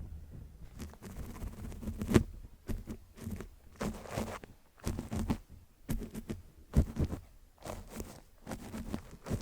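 Paintbrush brushing over a microphone that is covered with an old cloth mic bag: irregular scratchy strokes with a deep, muffled rumble, and two sharper bumps about two seconds in and again near seven seconds.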